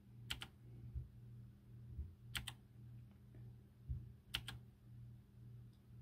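Clicky blue switches of a Camiysn typewriter-style mechanical keyboard, one key press about every two seconds, each press a quick double click. The presses cycle the RGB backlight through its modes. A low steady hum runs underneath.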